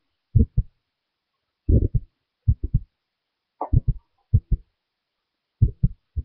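Soft, dull thumps of hands patting skin, coming in quick groups of two or three with short pauses between.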